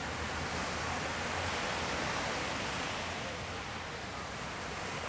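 Small shore-break waves on a sandy beach breaking and washing up the sand, a steady hiss that swells a little about two seconds in and then eases.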